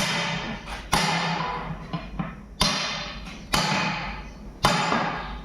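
Heavy hammer blows on the metal of a truck tire and wheel, five strikes about a second apart, each one ringing out.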